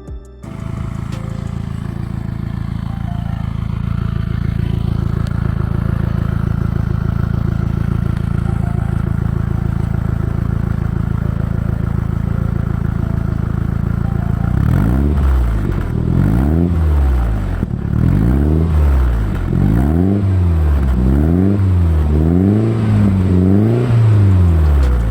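Exhaust of a Toyota MR2 GT-S (SW20) with a Fujitsubo RM01A aftermarket muffler, its turbocharged 3S-GTE inline-four idling steadily, then revved in a run of short blips about one a second from about halfway through, the pitch rising and falling with each one.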